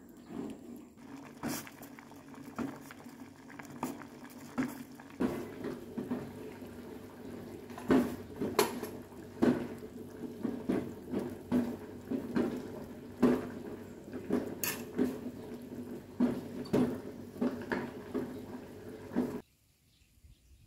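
Kitchen utensils clinking and knocking against pots and dishes while cooking, about one or two knocks a second over a steady low hum; the sound cuts off abruptly near the end.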